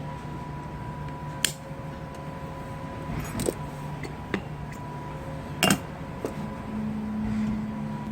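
A few sharp metallic clinks of tools or parts being handled, over a steady mechanical hum; a second low steady hum joins near the end.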